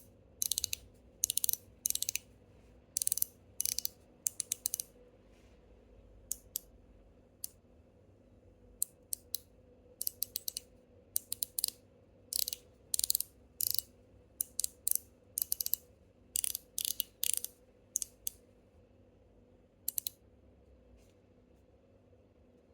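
ZZ EDC Bean Z fidget slider in stainless steel and PEI being slid back and forth, snapping into place with sharp, pronounced clicks in quick pairs and clusters. The clicking stops about two seconds before the end.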